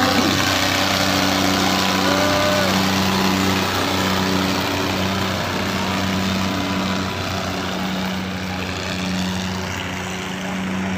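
Diesel engines of two John Deere tractors working under load as they pull against each other, chained together in a tractor tug of war: a steady engine drone that eases slightly near the end.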